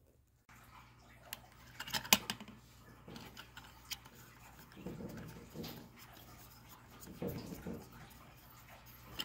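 Small black plastic parts being handled and turned by hand: scattered light clicks and rubbing, with a sharper click about two seconds in.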